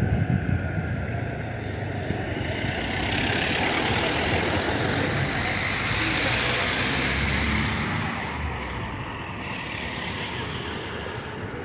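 Street traffic, with cars driving past close by. A low engine rumble sounds in the first second, then the noise of a passing vehicle swells and fades over several seconds.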